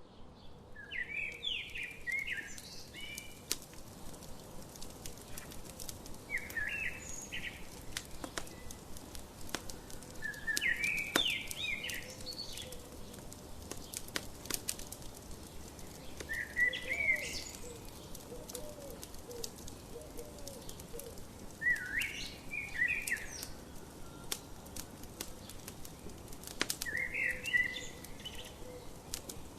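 Wood fire crackling with scattered sharp pops. Over it, a songbird repeats a short chirping phrase about every five seconds, six times.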